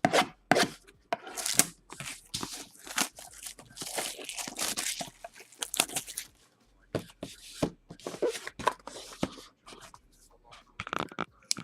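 Packaging of a sealed trading-card box being torn open and crinkled, in many short irregular rips and rustles.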